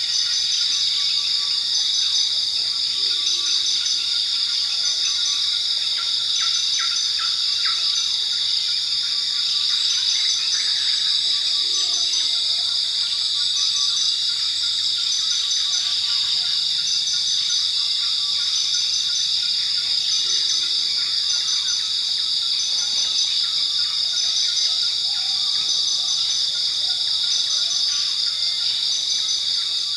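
Forest ambience: a dense insect chorus with steady high buzzing and regular cricket-like chirping, plus occasional short bird calls.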